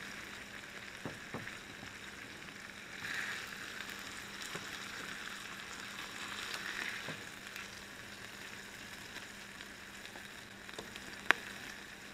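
Sausage sizzling steadily on a hot griddle plate over an alcohol burner, swelling louder twice. Near the end there is a single sharp click.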